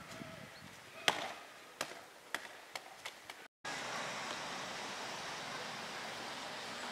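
A worn leather football dropped on asphalt, bouncing with sharp knocks that come quicker and mostly fainter as it settles. After a brief dropout there is a steady hiss.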